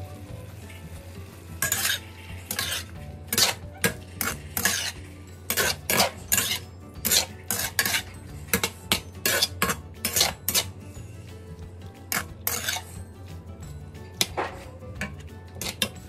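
A cooking utensil scraping and stirring in a pan in quick, irregular strokes, over a steady low hum.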